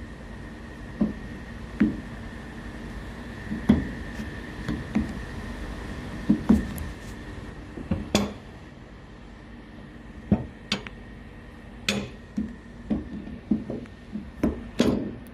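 Scattered knocks and clinks of pots, pans and utensils being handled on a kitchen stove, coming in bunches with a cluster near the end, over a steady low hum.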